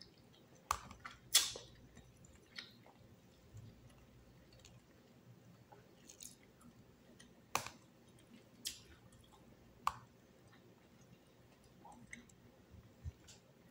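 A person eating long beans with a fork: chewing, with a handful of sharp, irregular clicks and taps of the metal fork against the plastic food container.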